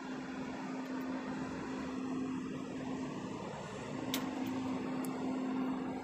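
A steady machine hum at one pitch, dropping out for a moment a little past halfway, over a haze of distant traffic noise. A single sharp click about four seconds in.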